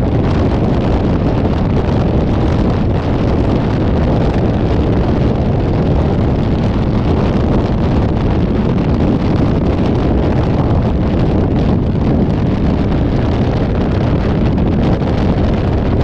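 Steady low rumble of wind buffeting the microphone, mixed with road noise from a moving vehicle, with no horn or other distinct event.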